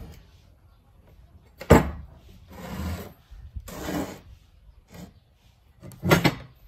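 Steel angle-iron bars handled on a wooden workbench: a sharp knock as a bar is set down about two seconds in, two scraping slides of steel over the wood, and another knock near the end.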